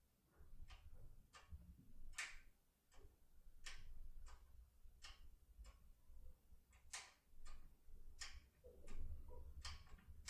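Faint, irregular clicking of a Topolino decoder being worked in a Cisa Asix P8 lock cylinder under light tension and impression movements, about two light clicks a second.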